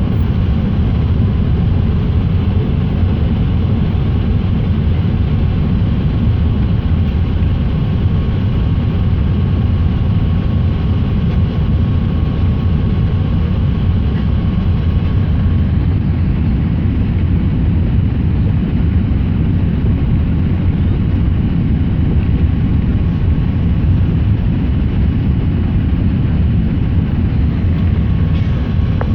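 Steady low rumble of engine and airflow noise inside an Airbus A380's passenger cabin in flight on the approach, with a faint steady whine above it.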